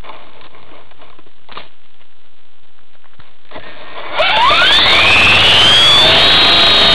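Electric motor and rotor of an E-sky Belt CP RC helicopter spooling up about four seconds in, a whine that rises steeply in pitch and then levels off. Before that, only a few faint clicks.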